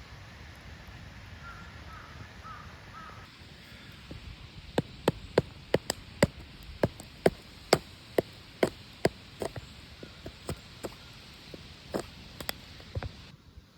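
A rapid series of sharp knocks, about two a second, beginning about five seconds in and becoming sparser and softer after about nine seconds.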